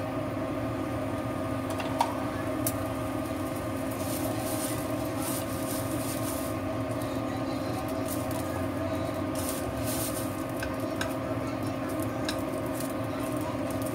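Ginger pieces sizzling and crackling in hot oil in a wok, over the steady hum of an induction cooker. There is a single sharp click about two seconds in.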